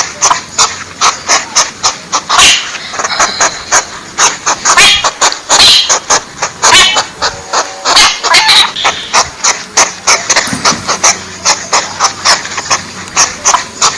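Porcupine sounds: a rapid, uneven run of sharp clicks, about three or four a second, with short high cries mixed in several times.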